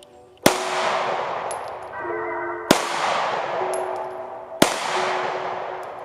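Glock 43X 9mm pistol fired three times, about two seconds apart, each shot loud with a long echo trailing off. Faint background music under the shots.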